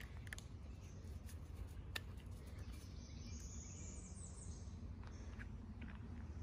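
Quiet outdoor ambience: a low steady rumble, a few faint ticks, and a faint high-pitched bird call about three seconds in.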